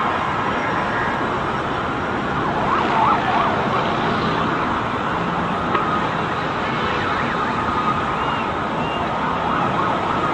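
Emergency-vehicle sirens wailing over steady city traffic noise.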